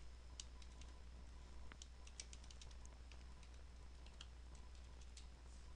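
Faint computer keyboard typing: irregular, scattered key clicks over a steady low hum.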